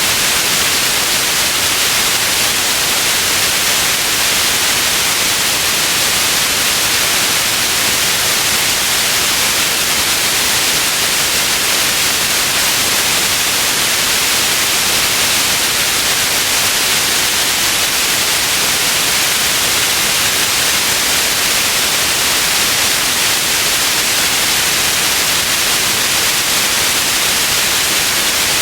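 Steady white noise: an even, unchanging hiss, brightest in the upper range, played as a sleep aid.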